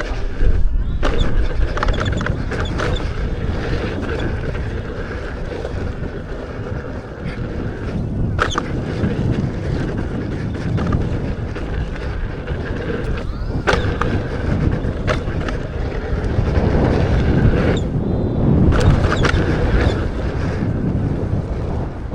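Wind buffeting the microphone and tyre rumble from an electric unicycle ridden fast down a dirt trail, with a few sharp knocks from bumps and landings.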